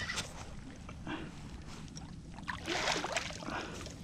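Water splashing as a hooked fish struggles at the surface beside a kayak, in short bursts that are loudest about three seconds in, over a low steady rumble.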